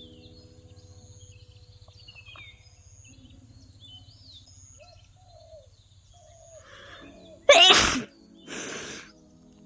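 A person sneezes once, loudly, near the end. About half a second later comes a shorter, breathy burst of air.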